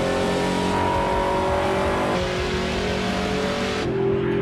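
Big Red, a supercharged 1969 Chevrolet Camaro race car, running hard on a high-speed run, its engine pitch climbing steadily. Just after two seconds the pitch dips slightly, and near the end the sound turns duller and steadier.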